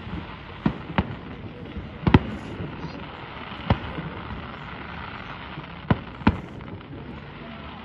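Aerial fireworks going off in the distance: about seven sharp bangs at irregular intervals, two close together about two seconds in, over a steady background hiss.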